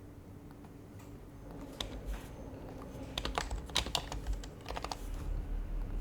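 Typing on an HHKB Professional HYBRID Type-S keyboard with silenced Topre switches. After a quiet first couple of seconds come a few scattered keystrokes, then a quicker run of keys in the middle, easing off near the end.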